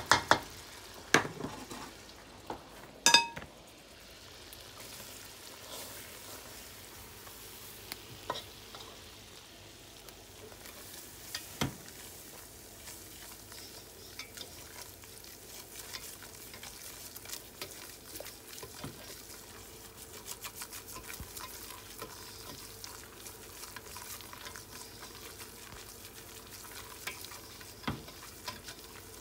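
Butter-and-flour roux sizzling softly in a stainless steel pot as it is stirred, the utensil scraping through the paste. A few sharp clinks of the utensil on the pot stand out, the loudest about three seconds in with a brief metallic ring.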